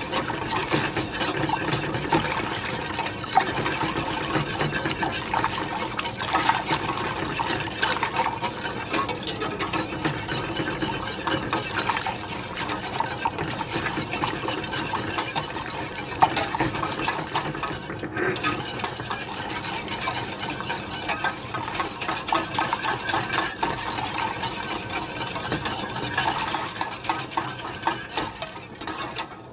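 A wire whisk scraping and rattling fast against the sides and bottom of a stainless steel saucepan as a thin milk and flour mixture is whisked without pause. It lulls briefly about two thirds through and stops at the end.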